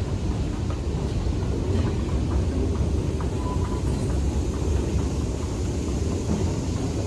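Steady low rumble of subway station ambience, with a few faint clicks.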